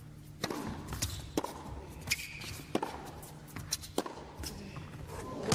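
Tennis rally on an indoor hard court: sharp pops of racket strings striking the ball, roughly every second and a half, with the ball's bounces between them, over a low steady hum.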